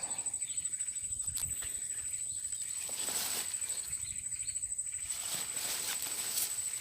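An insect trills steadily at one high pitch, with scattered rustling and light clicks of handling.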